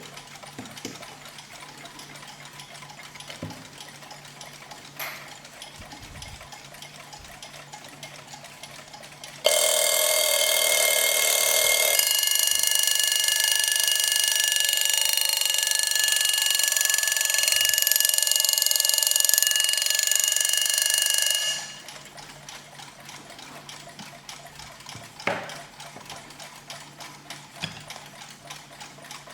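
Mechanical alarm clock ticking quickly and faintly, then its bell ringing loudly and continuously for about twelve seconds. The ringing starts suddenly about nine seconds in and cuts off sharply, and the ticking goes on after it.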